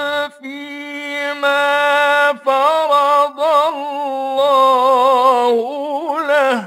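A male Quran reciter chanting in the melodic mujawwad style. He draws out long held phrases with wavering ornaments on the notes, takes three brief pauses, and stops abruptly near the end.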